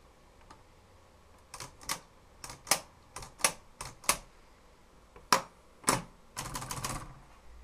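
Adler Tippa portable manual typewriter being typed on: about ten sharp, uneven key strikes after a short pause, then a quick rattling run of clicks near the end.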